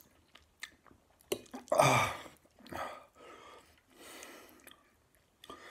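A man breathing hard through his mouth against the burn of extra-spicy ramen noodles. There is one loud huffing exhale about two seconds in, then two softer breaths, with small clicks of chewing and cutlery between them.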